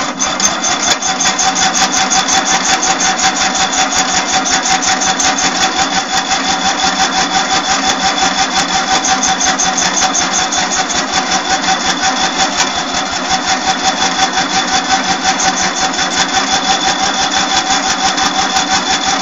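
Craftsman riding tractor's 19.5 HP V-twin engine cranking on its starter in a long start attempt on a cold engine. The starter whines over an even, rapid chugging of the compression strokes, and the engine does not catch or change speed.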